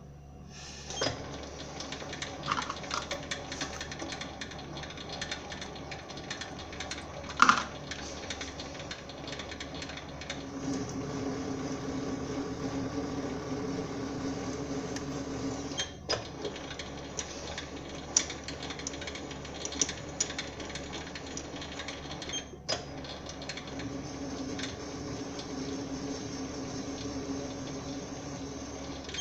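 Sieg SC4 bench lathe starting about a second in and running while screw-cutting an M10 x 1.5 thread in steel: a steady machine hum from the motor and gear train with scattered clicks and ticks, one loud click about seven and a half seconds in. The hum grows stronger and lower from about ten seconds in, with two very short breaks.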